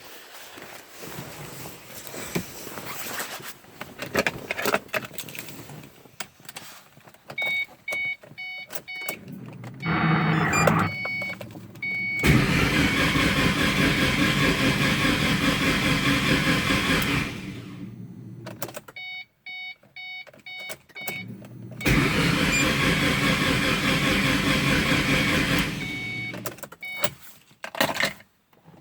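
Starter motor cranking a car engine that has its spark plugs and coils removed: a short crank, then a long crank of about five seconds and another of about four, with no firing. This is the slow-crank, no-start fault, which the owner suspects is a starter, timing or crankshaft problem. Between the cranks the car's warning chime beeps repeatedly.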